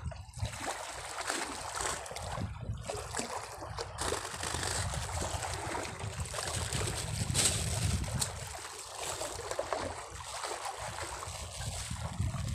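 Seawater sloshing and trickling at the water's edge, with crinkly handling noise from a plastic bag around the middle.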